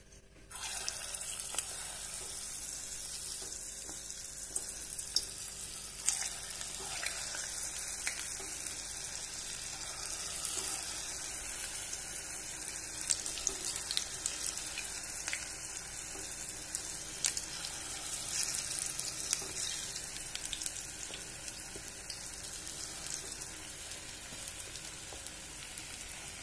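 Balls of thick idli batter dropped into hot oil in a small iron kadai, frying with a steady sizzle. The sizzle starts suddenly about half a second in, with scattered sharp spits and crackles as more batter goes in.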